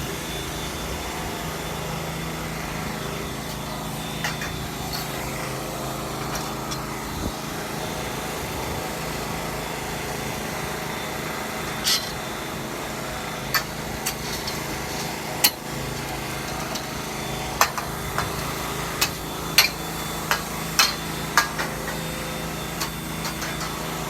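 Metal frame-tent poles knocking and clanking against their fittings as they are worked into place, with several sharp knocks in the second half, over a steady engine hum.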